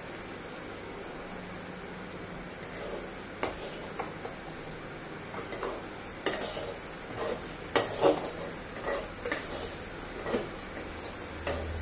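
A spatula scraping and tapping against a kadai as a spice masala is stir-fried, over a steady low sizzle. The scrapes come irregularly, a few at first and more often in the second half.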